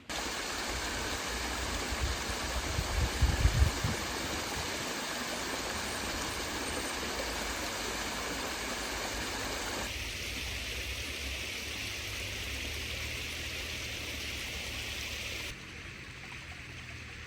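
Steady rushing noise of running water, with low buffeting thumps about two to four seconds in. The sound changes abruptly at about ten seconds and again near the end.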